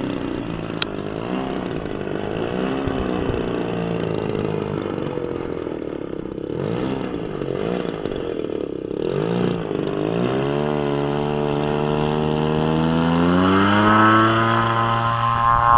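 Engine of a large radio-controlled model airplane running at low throttle, its pitch wavering up and down as it taxis, then opened up about ten seconds in, the note rising steadily for the takeoff run.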